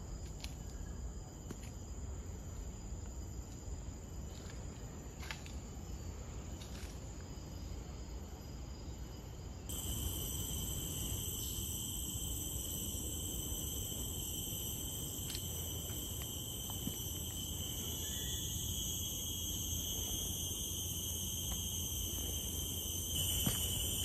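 Steady high-pitched droning of insects over a low rumble. About ten seconds in it switches abruptly to a louder insect chorus holding several steady pitches at once.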